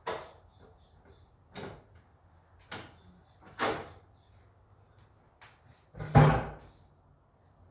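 Knocks and clunks of tools and parts being handled while a Ford 7610 tractor is taken apart: about five separate sharp knocks, the loudest and heaviest about six seconds in.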